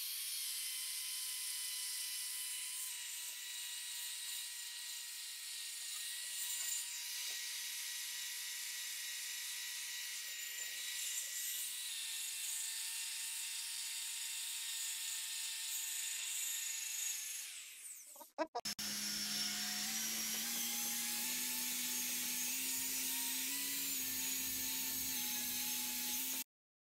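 Electric drill spinning a wool buffing pad against a car's paint and glass: a steady motor whine. About 18 seconds in it winds down and stops, then runs again at a lower pitch that creeps slowly upward, cutting off suddenly just before the end.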